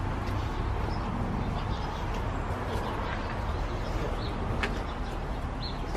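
Outdoor street ambience: a steady low traffic rumble with a few short, high bird chirps scattered through it.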